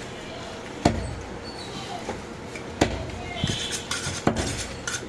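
Heavy butcher's knife chopping through goat ribs into a wooden chopping block: three hard chops spaced a second or two apart, with lighter knocks near the end.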